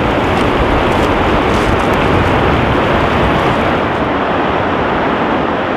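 Steady, loud wind rumbling on the microphone, mixed with the wash of sea waves on a shingle beach.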